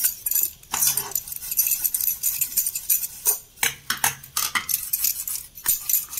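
Steel-wool scrubber scouring a brass incense stand in quick, irregular scraping strokes, with a denser run of strokes a little past the middle.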